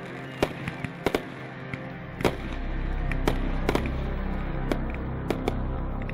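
Fireworks going off in irregular sharp bangs and crackles over background music with sustained low tones; the low end swells from about two seconds in.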